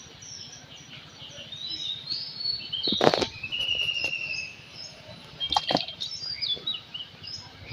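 Small birds chirping and calling over and over, with two loud rustling or splashing bursts, about three seconds in and again at five and a half.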